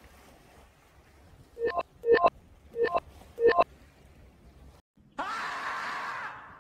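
Comic sound effects edited in: four short, sharp electronic beeps, then a long, hoarse scream from the screaming-marmot meme. The beeps are the loudest sounds.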